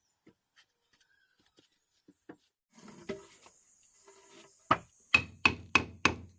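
Hammer striking wood: scattered faint knocks, then a quick run of five loud blows about a third of a second apart near the end.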